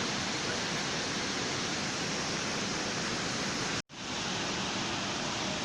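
Steady, even rushing noise that cuts out abruptly for a split second about four seconds in, then fades back in.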